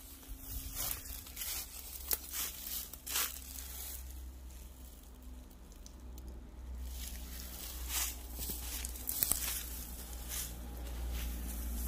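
Footsteps crunching and rustling through dry grass and brush, in irregular crackles, over a low steady rumble.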